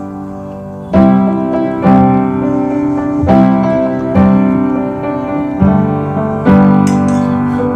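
Background music: an instrumental break of a pop song, piano chords struck about once a second, with no singing.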